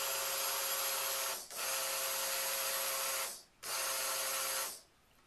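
Hand-held stick blender motor running in short pulses with a steady whine while blending soap batter. It stops briefly about a second and a half in, pauses again past three seconds, then cuts off shortly before the end.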